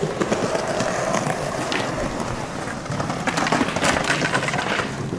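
Skateboard wheels rolling over stone paving slabs: a steady rushing rumble with scattered sharp clacks, which bunch together a little past halfway.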